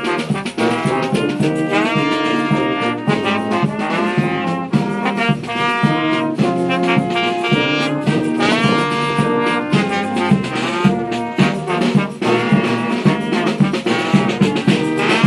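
Brass band of trombones, trumpets and a tuba playing a tune together, with a drum keeping a steady beat.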